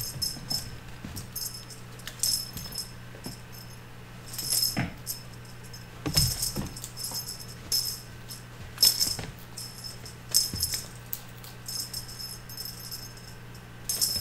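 A jingling cat wand toy shaken and whipped about in short bursts, roughly every second or two, as kittens leap at it, with a few soft thumps of the kittens landing and pouncing.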